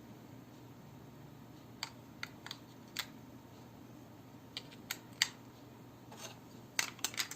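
Sharp plastic clicks and taps from a Panasonic cordless phone handset being handled and snapped back together, scattered singly, then a quick run of clicks near the end.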